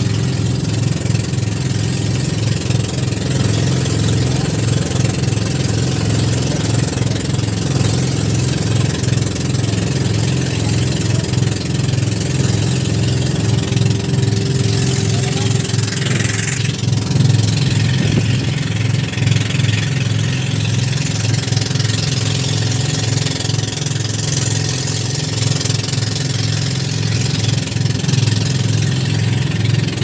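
Motorized outrigger boat (bangka) engine running steadily at cruising speed, a rapid even low pulsing, over a hiss of wind and choppy water.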